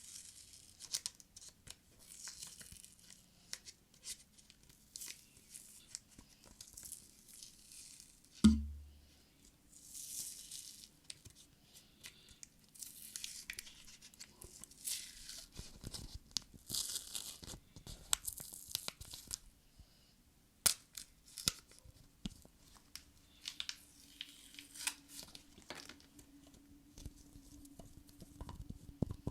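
Close-miked ASMR trigger sounds: repeated scratchy, tearing strokes of about a second each, with scattered sharp clicks and one loud thump about eight and a half seconds in.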